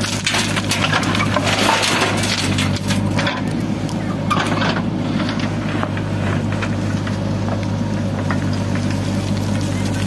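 JCB 3DX backhoe loader's diesel engine running steadily under load while the backhoe works. Stones and soil crunch and rattle through the first half as the bucket dumps earth into a tractor trolley and digs into stony ground.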